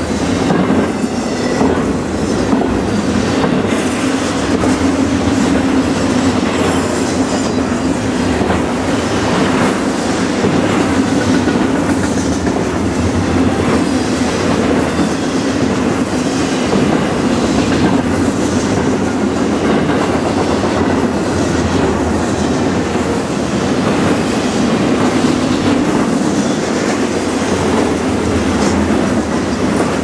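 Double-stack intermodal container train passing close by: steel wheels rolling on the rails with a steady rumble and repeated clickety-clack as the well cars' trucks go over the track.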